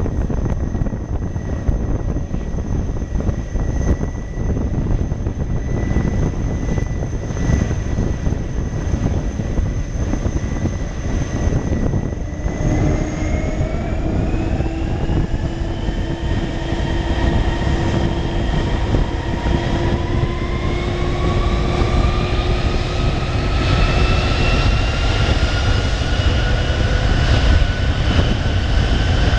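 Boeing KC-46's two Pratt & Whitney PW4062 turbofans over a deep rumble: a steady whine that, about twelve seconds in, begins rising in pitch and climbs again in a second stage toward the end as the engines spool up toward takeoff power.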